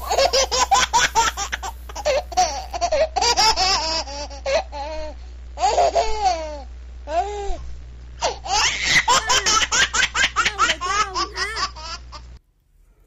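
High-pitched laughter in long, rapid fits, over a steady low hum. Both cut off abruptly near the end.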